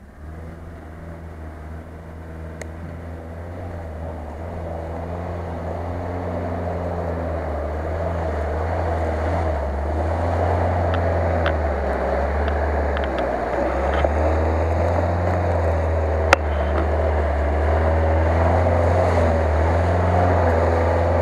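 Off-road 4x4's engine running under load as it drives through deep mud, growing steadily louder as it comes closer. There is a sharp knock about sixteen seconds in, and the engine begins to rev up right at the end.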